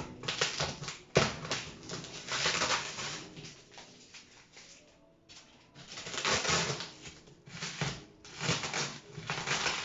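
Packaging being handled and torn open while a box is unpacked: irregular bursts of rustling and ripping, with a sharp knock about a second in and a short lull near the middle.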